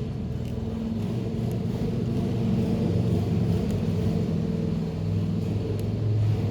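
Bullfrog's low, steady rumbling call, deepening about five seconds in.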